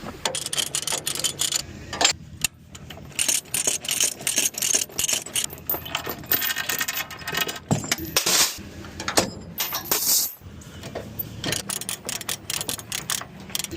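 Metal chain links rattling and clinking in quick, irregular clatters, typical of tie-down chains and binders being taken off a trailer before unloading a skid steer.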